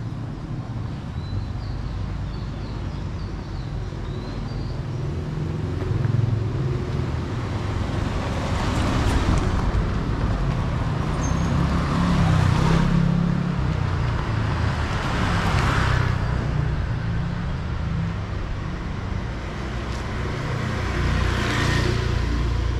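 City street traffic: a steady low rumble with about four vehicles passing one after another, each swelling up and fading away.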